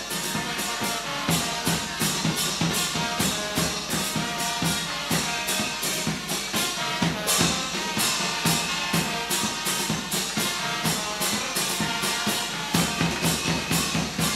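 A church brass-and-drum band playing a quick steady beat: trumpets and trombones over a marching bass drum and a snare drum, with clashed hand cymbals.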